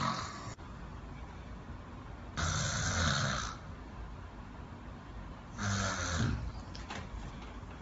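A man snoring in his sleep: two loud snores about three seconds apart, each lasting about a second, a low buzz with breathy hiss, with quieter breathing between them.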